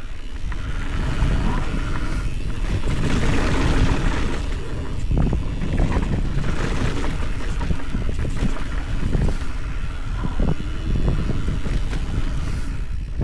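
Wind buffeting the helmet camera's microphone as a mountain bike rides fast downhill, with the tyres rolling over a dusty dirt trail and the bike knocking and rattling over bumps.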